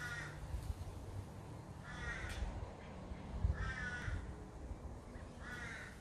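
Crow cawing: four caws, one roughly every two seconds.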